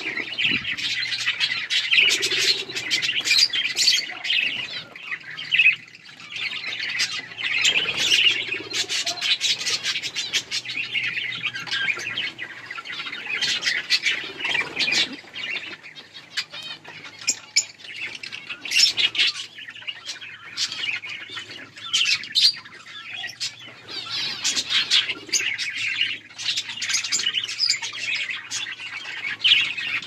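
A flock of budgerigars chirping and chattering without a break, the warble dotted with many short, sharp calls and squawks.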